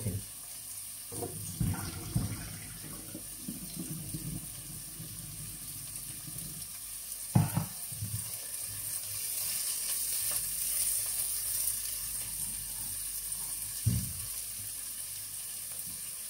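Onion, carrot and sweet pepper sizzling as they fry in sunflower oil in a pot, stirred with a silicone spatula. A few short knocks come through, the loudest about seven seconds in.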